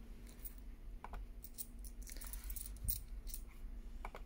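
A laptop touchpad being clicked: about eight short, light clicks at uneven intervals.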